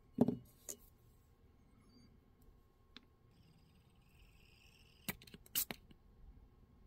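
Small clicks and taps of hand tools being handled and set down over a plastic lid. The loudest is a knock just after the start, then a tick near the middle and a quick cluster of clicks about five seconds in; otherwise quiet.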